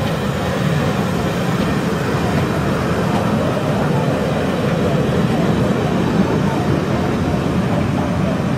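Steam train standing at the platform: a loud, steady rushing rumble with no distinct beat.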